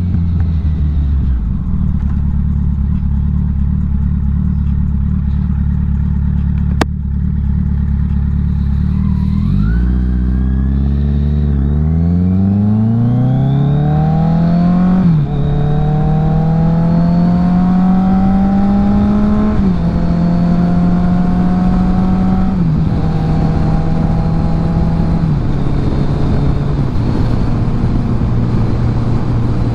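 Kawasaki Z900 inline-four motorcycle engine settling to a steady idle, then pulling away about a third of the way in and accelerating up through the gears. The pitch rises and drops sharply at each upshift, several times.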